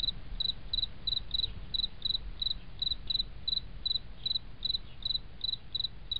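Insect chirping in a steady rhythm, about three short high chirps a second, over a low background rumble.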